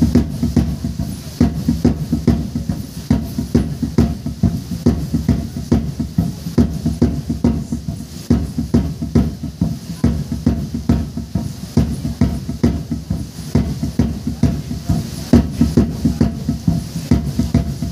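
Traditional cylindrical drum beaten in a steady dance rhythm, about two to three beats a second, each beat a short deep thump with a sharp edge.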